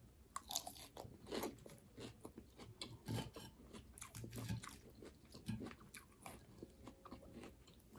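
A person chewing a mouthful of raw garden salad close to the microphone: a string of faint, irregular crunches.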